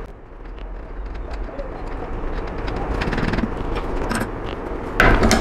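A nut being tightened with a small spindle wrench onto the sanding drum of a Triton oscillating spindle sander: light metal clicks and scrapes over a steady hiss, with a bird cooing. A louder sudden sound comes near the end.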